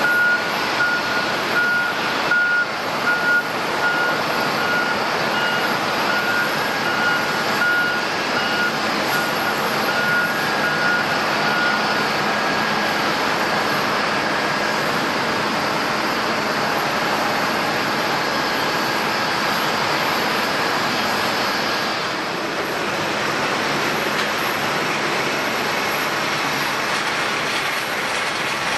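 Jet airliner engine noise, steady and loud. A thin high tone, broken into short pieces, sits over it for about the first twelve seconds.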